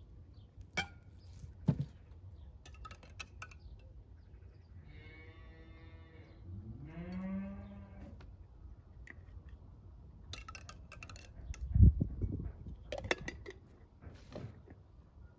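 Two drawn-out livestock calls, one about five seconds in and a second right after it that rises in pitch and then holds. Scattered knocks and clatter surround them, the loudest a dull thump about twelve seconds in.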